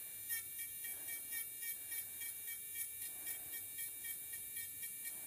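High-speed podiatry rotary file spinning at about 30,000 RPM with a sandpaper emery burr, a faint steady whine that swells in a quick rhythm, about three pulses a second, as the burr is tapped lightly against a callus.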